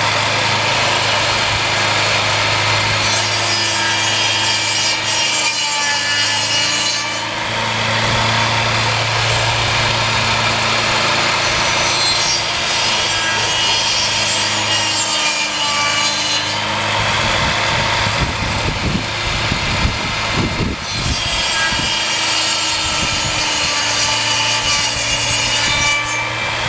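Table saw blade, used as a stump grinder, grinding into a wooden stump: the motor runs steadily under a continuous rasping of chewed wood, with some irregular low knocks about two-thirds of the way in.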